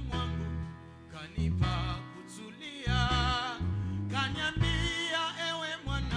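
Swahili gospel song: a singing voice holding wavering notes over a band with bass and guitar.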